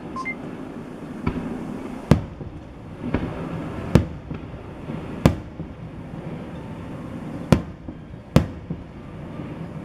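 Japanese aerial firework shells bursting in a rapid barrage: five sharp booms at irregular intervals of about one to two seconds, with a couple of fainter bangs between them, over a steady background noise.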